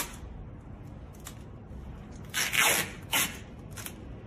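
Tyvek flashing tape being pulled off its roll and pressed onto a seam of the wrap: a loud rasp of tape unrolling about two and a half seconds in, and a shorter one just after.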